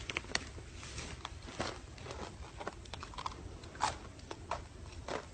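A deer crunching and chewing chips: irregular crisp crackles several times a second, the loudest a little under four seconds in.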